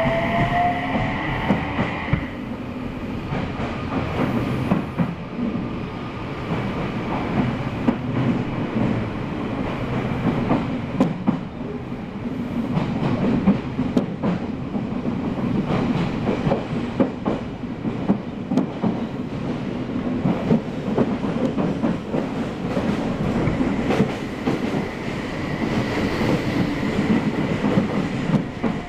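Odakyu 3000-series electric train (set 3257F) running, heard from inside the car. The traction motors' rising inverter whine fades out about two seconds in. After that come the wheels' rolling rumble and irregular clacks over rail joints, and a high inverter tone comes back near the end.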